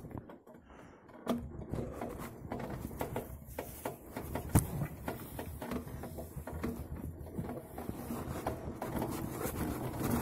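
Mountain bike rattling and clattering as it rolls down a rough, rutted dirt trail, with irregular knocks from the bumps and one sharp knock about four and a half seconds in.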